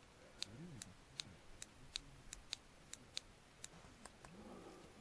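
Near silence with faint, sharp ticks, two or three a second and unevenly spaced, over a quiet night background.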